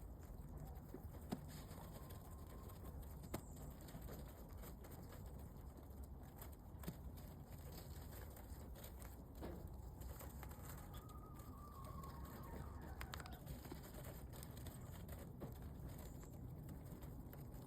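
Pigeons cooing faintly over a steady low background hum, with scattered soft clicks.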